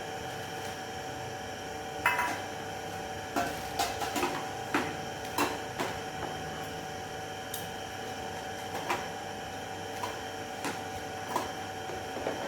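Irregular clinks and knocks of small equipment and containers being handled and put away, the sharpest about two seconds in and a busier run of them in the middle, over a steady electrical hum.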